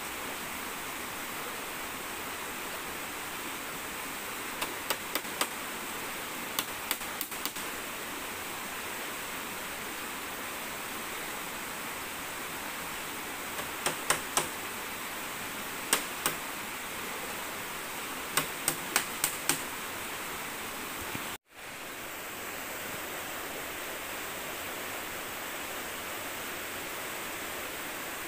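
Steady rush of a swollen, muddy river in flood. Over it, sharp knocks come in quick groups of three or four several times, from the bamboo treehouse frame being worked on.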